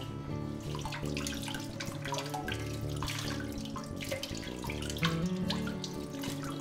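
Kitchen tap running, its stream splashing over fish gills as they are rinsed by hand above a bowl of water. Soft background music with held notes plays underneath.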